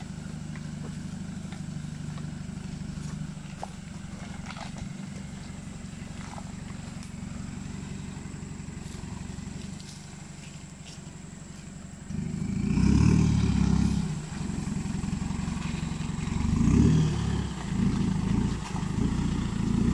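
4x4 pickup truck engine running at low speed as the truck crawls along a rough dirt track. From about two-thirds of the way in, it revs up in several louder surges as the truck pulls forward close by.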